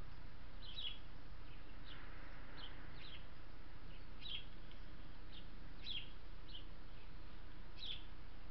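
Small birds chirping: short, sharp chirps, about a dozen at irregular intervals, over a steady low background hum.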